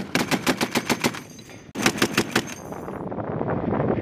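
Browning M2 .50-calibre heavy machine gun firing in bursts at about eight rounds a second. A burst of about a second stops, and after about half a second a shorter burst of about six rounds follows. A lower rushing noise follows to the end.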